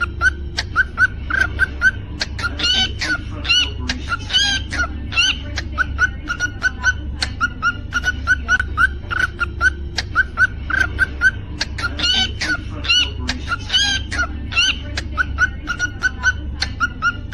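Cockatiel chirping continuously: a steady string of short repeated chirps, about three or four a second, broken now and then by louder, higher rising whistled notes. A steady low hum runs underneath.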